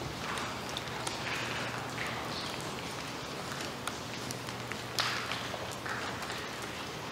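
Footsteps crunching and scuffing over rubble-strewn ground, roughly one step a second, with a sharper crack about five seconds in.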